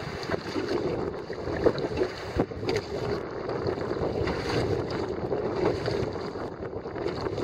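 Oars working the water as an inflatable PVC boat is rowed, with water sloshing against the hull and wind buffeting the microphone. A few short knocks come through, the loudest about one and a half seconds in.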